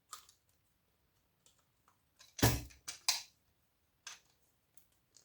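Pliers or cutters biting into a power-supply transformer to crack its ferrite core. There is one sharp crunch about halfway through, two small clicks right after it, and a few faint ticks around them.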